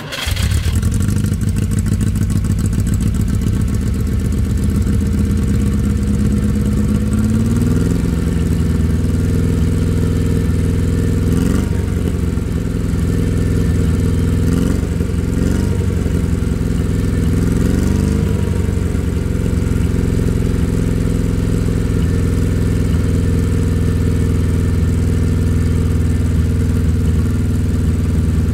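Škoda 120's rear-mounted four-cylinder engine running through a homemade exhaust, heard at the tailpipe. It idles steadily and is blipped briefly a few times in the middle, the pitch rising and dropping back each time.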